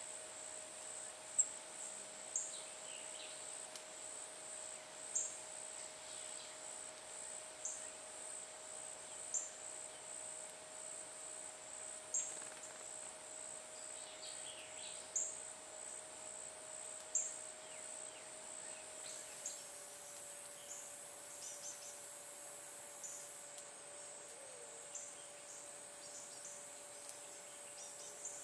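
Steady, high-pitched chorus of insects with a lower steady hum beneath it. Short sharp ticks or chips cut in every second or two, mostly in the first two-thirds.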